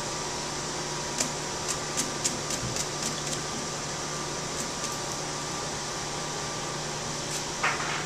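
Light clicks and rattles of shredded plastic flakes as a hand picks through them in a pan, a cluster of them about a second in and a few more later, over a steady machine hum.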